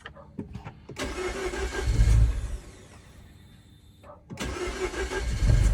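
Mini Cooper S's N18 1.6-litre turbo four-cylinder cranking twice, each attempt lasting about a second and a half and swelling to a brief low rumble before it stops. The engine does not catch, a no-start that persists despite a newly replaced high-pressure fuel pump.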